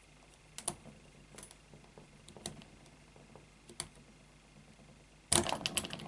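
Plastic number wheels of a cheap Rolson combination cable bike lock clicking now and then as they are turned one by one under a pulling force, the way the lock is decoded by feel. Near the end comes a quick run of louder clicks and rattles as the lock comes apart.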